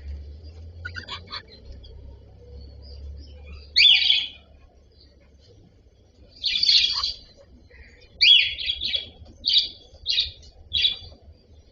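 Cockatiel giving short, shrill chirping calls: a loud one about four seconds in, another near seven seconds, then a quick run of four or five near the end.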